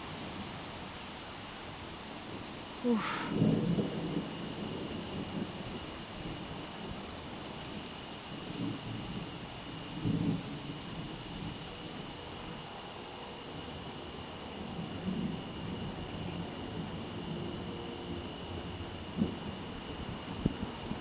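Steady chorus of night insects: a continuous high-pitched trill at two pitches, with short, higher buzzes now and then.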